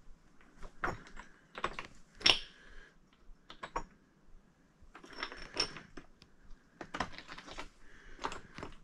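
Footsteps crunching on loose rock and gravel, irregular steps each made of several sharp little clicks, the loudest a little over two seconds in.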